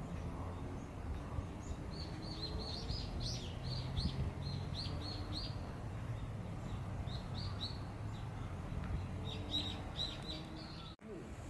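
Small bird chirping in three quick bouts of short, down-sweeping notes, over a steady low background rumble.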